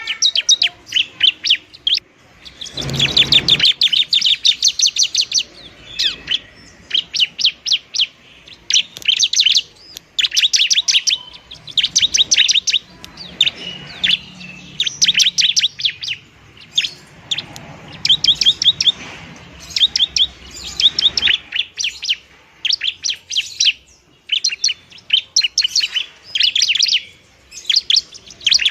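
Bar-winged prinia (ciblek) singing: fast, rattling phrases of rapid repeated chirps, each about a second long, with short pauses between them. This is its fighting song, used to lure and rouse other prinias.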